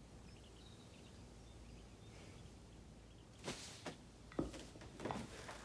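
Faint steady background ambience, then about five short, sharp knocks in the last two seconds.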